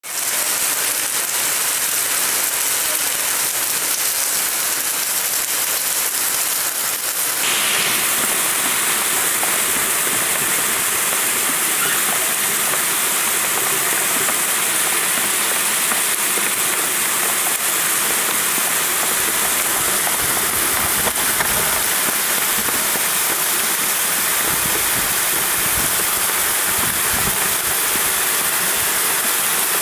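Torrential rain falling steadily. About seven seconds in it changes to the steady rush of fast, swollen floodwater churning through a concrete drain, with the rain still falling.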